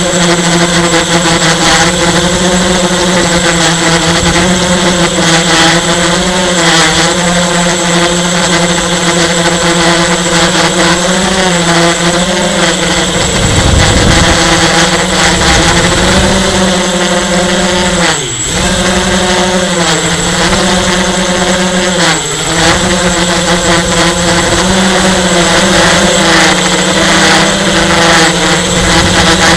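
Skyartec Butterfly RC electric helicopter's motor and rotor running with a steady whine, making what its owner calls weird motor sounds. The pitch wavers throughout and drops sharply twice, about 18 and 22 seconds in, each time recovering straight away.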